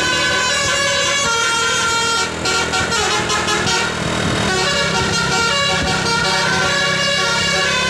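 A bus's Basuri multi-tone 'telolet' air horn playing a tune of held notes. The notes break off for about two seconds partway through, leaving engine and air noise, then start again.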